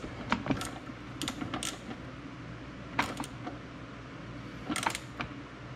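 Irregular sharp metal clicks and light taps as a nut is threaded and hand-tightened onto a bolt of a jet ski's jet pump nozzle assembly.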